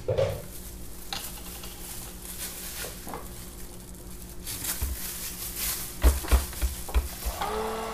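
Stick blender being handled and lowered into a plastic pitcher of soap batter, with several low knocks against the pitcher in the last couple of seconds. Near the end its motor switches on with a steady hum as it starts mixing the batter.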